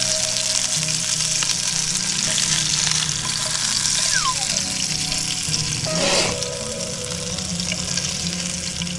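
Diced sooty grunter fillet frying in olive oil in a frying pan, a steady sizzle and crackle, with a brief louder burst about six seconds in.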